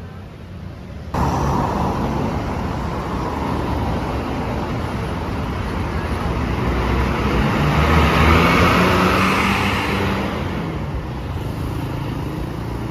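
Road traffic noise that starts abruptly about a second in, then a heavy vehicle passes close by. Its engine and tyre noise swell to a peak about eight seconds in and then ease off.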